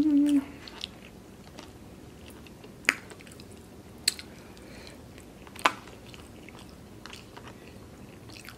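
A person chewing food close to the microphone, with three sharp mouth clicks about three, four and five and a half seconds in.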